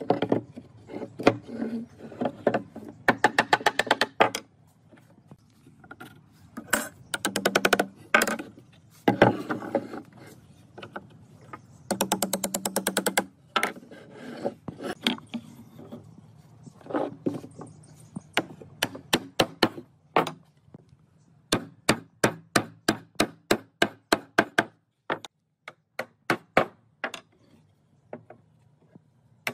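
Repeated sharp blows of a mallet on pine joinery, driving tenons and a locking wedge into their mortises. Some come in fast runs of quick strikes, and later ones in steadier series of about two or three knocks a second.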